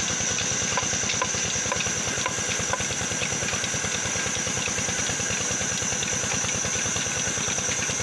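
Vertical band sawmill running steadily: a constant mechanical hum with a fast, even low pulsing and a hiss over it.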